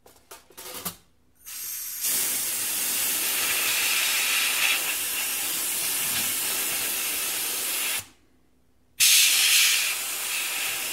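Can of compressed air blasting into a laptop's cooling fan and heatsink to blow out dust: a few light clicks, then a steady hiss of about six seconds, a second's pause, and a second hissing blast.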